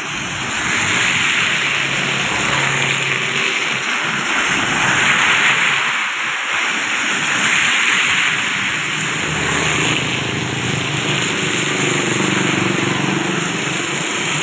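Heavy rain hissing steadily on a wet road, with vehicles driving through the water: a small pickup truck splashing past early on, and motorcycle engines coming closer near the end.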